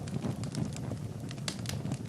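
Fireplace fire crackling: irregular sharp snaps and pops over a steady low rumble of the flames.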